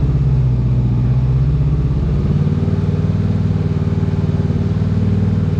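Honda CBR500R parallel-twin engine with an aftermarket Scorpion slip-on exhaust running steadily at a constant speed, engine warm.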